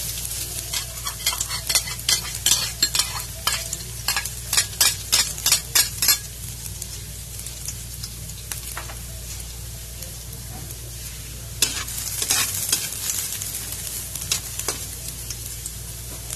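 Minced garlic sizzling in hot cooking oil in a metal wok, being sautéed toward golden brown. Quick stirring strokes scrape and tap the wok for the first several seconds and again briefly after about eleven seconds.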